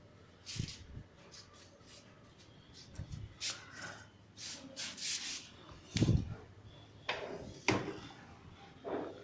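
Polish being rubbed by hand onto a motorcycle's paintwork, in short irregular scraping strokes.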